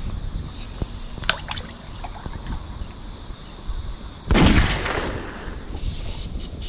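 Mountain stream running steadily, with a sudden loud thump about four seconds in that fades over a second.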